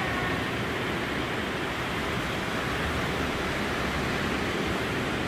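Surf breaking along a sandy beach, heard from above as a steady, even wash of noise.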